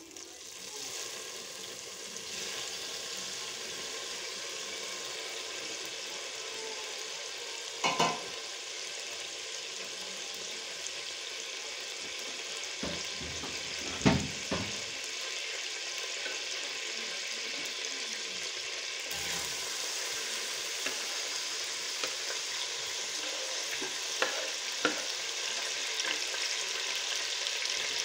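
Hot cooking oil sizzling steadily in a stainless steel pot, the hiss building over the first couple of seconds as the oil goes in. A few sharp knocks come through, about eight and fourteen seconds in.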